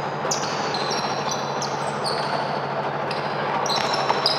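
Basketball play on an indoor court: a ball bouncing and sneakers squeaking on the floor in many short high squeals, over a steady hall noise with a low hum. A few sharper knocks come near the end.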